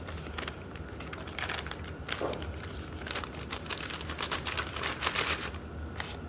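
Plastic bag of glutinous rice flour crinkling as it is shaken and squeezed empty over a mixing bowl. The crackles come in quick bursts, busiest from about two seconds in until near the end.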